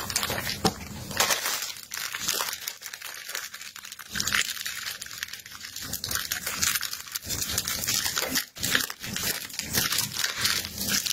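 Thin plastic food bag crinkling and rustling as gloved hands knead and twist it around chicken pieces in a wet marinade, in uneven crackles that ease for a moment a few seconds in.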